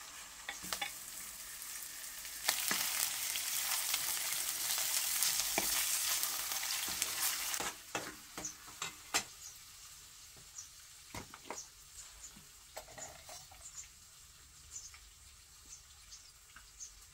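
Minced meat frying in hot oil in an aluminium pan on a gas-cylinder burner: a loud sizzle that swells about two seconds in and holds for about five seconds, then settles to a quieter sizzle with light clicks of utensils against the pan.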